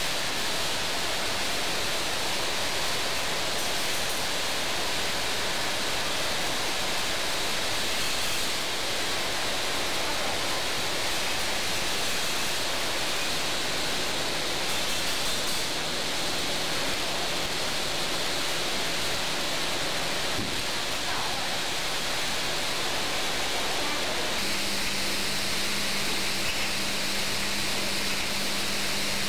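Steady hiss of a running vial powder-filling line, with no distinct clicks or rhythm; a faint low hum comes in near the end.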